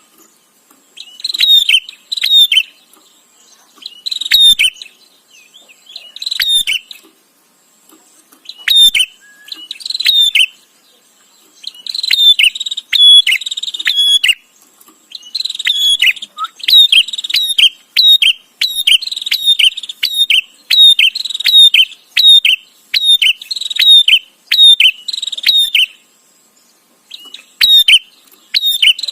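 A prinia (prenjak) chattering: bursts of rapid, sharp, scratchy calls broken by short pauses, running almost unbroken for about ten seconds through the middle of the stretch.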